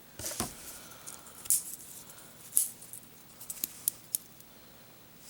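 Leatherman Squirt PS4 multi-tool being handled: scattered light clicks, five or six over a few seconds, with faint rustling between.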